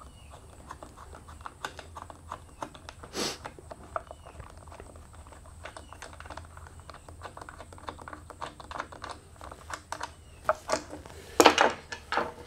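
Light, rapid clicking and ticking of metal parts as the captive bar nuts are spun off the clutch cover of a Stihl MS 261 chainsaw, with a sharper click about three seconds in. Near the end comes a louder clatter of knocks as the plastic clutch cover is lifted off.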